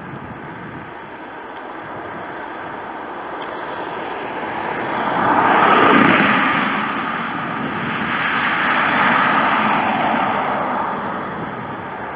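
British Airways jet airliner's engines as it rolls fast along the runway past the listener. The jet roar swells to a peak about six seconds in, dips, rises again around nine seconds, then fades.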